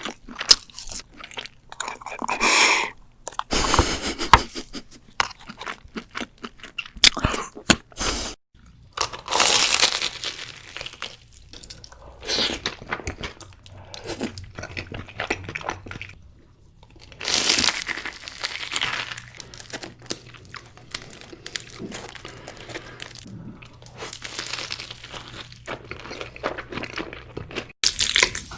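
Close-miked eating sounds: crisp crunching bites and chewing of crunchy food, in quick irregular bursts, changing abruptly between clips. A steady hiss takes over near the end.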